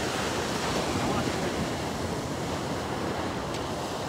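Atlantic surf washing up on a sandy beach: a steady rush of small breaking waves, with wind on the microphone.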